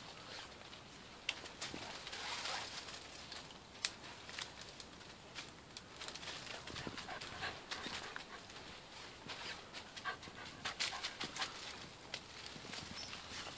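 Springer spaniel puppy panting as it hunts through dry leaf litter and brambles, with rustling leaves and sharp crackles of twigs throughout.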